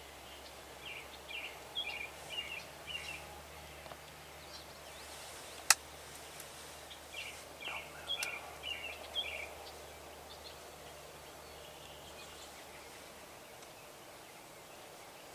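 Wild turkey yelping: two runs of about seven short yelps, several seconds apart. A single sharp click falls between them and is the loudest sound.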